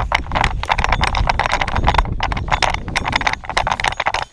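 Quick, irregular footsteps and knocks of a player running with gear rattling, several a second, over a steady low rumble on the microphone.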